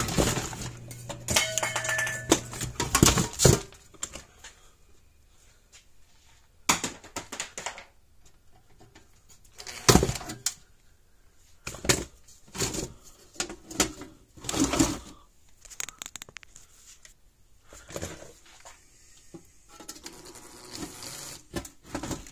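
Scattered clicks, clinks and knocks of small metal parts and hand tools being handled on a workbench, at irregular intervals, with a few sharper knocks, the loudest about ten seconds in.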